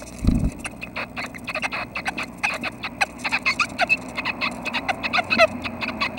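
Red-breasted nuthatch nestlings begging in the nest box: many rapid, short chirps and clicks running several to the second. A dull thump sounds about a third of a second in.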